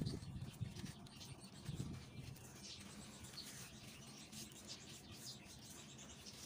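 Wet, gritty sand-cement being squeezed and crumbled by hand in a tub of muddy water, giving soft squishing and grinding sounds that are strongest in the first two seconds and then quieter. Faint bird chirps in the background.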